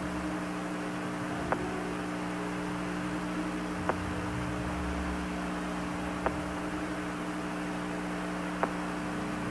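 Steady hiss and hum of an archival NASA mission-audio radio channel with nobody transmitting, broken by a faint click about every two and a half seconds.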